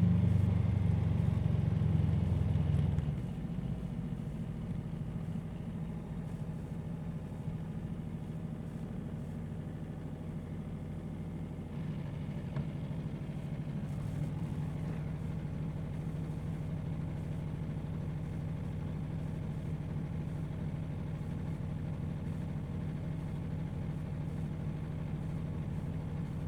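Aprilia Tuono V4 motorcycle's V4 engine, louder for the first three seconds, then settling into a steady idle.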